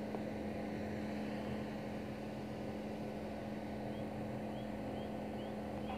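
Steady low hum with a constant tone and no change in level. A few faint short chirps come in from about four seconds in.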